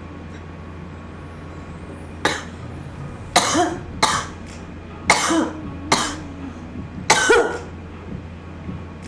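A woman coughing in short fits, about six coughs starting a couple of seconds in, after inhaling a cannabis dab.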